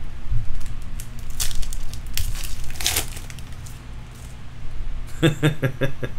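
Trading cards being slid and flipped through by hand, making several short papery swipes and rustles in the first three seconds. A man's voice starts near the end.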